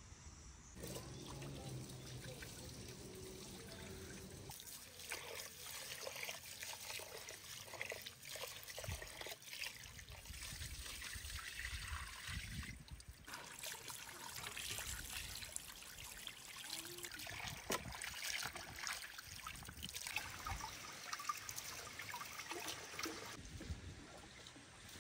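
Rice being rinsed in a pot: water splashing and trickling as the grains are swirled and the cloudy rinse water is poured off.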